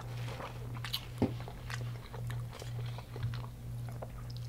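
Close-up chewing and crunching of deep-fried food in a crunchy Hot Cheetos coating: a run of small crisp clicks, with one louder click about a second in. A low pulsing hum runs behind.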